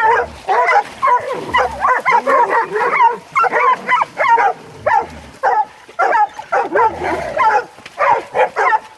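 Several hog-hunting dogs barking rapidly and without pause at a caught boar hog.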